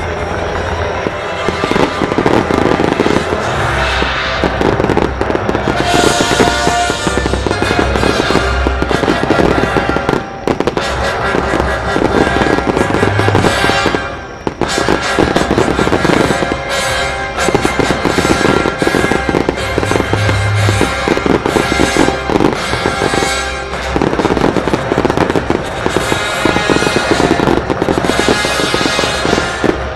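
Fireworks display: a dense, continuous run of bangs and crackling from aerial shells and low-level bursts, with music playing along with the show. The barrage eases off briefly twice, about ten and fourteen seconds in.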